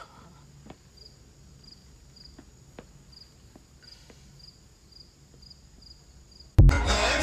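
Faint high-pitched insect chirps repeating about twice a second, with a few soft clicks. Loud music cuts in suddenly near the end.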